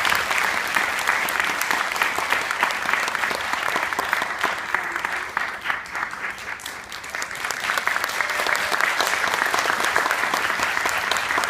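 Audience applauding, the clapping thinning out about halfway through and then swelling again.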